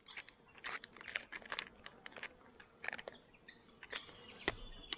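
A long-handled spoon stirring rehydrated freeze-dried chilli inside a foil meal pouch: irregular crinkles of the pouch and soft scrapes and clicks of the spoon.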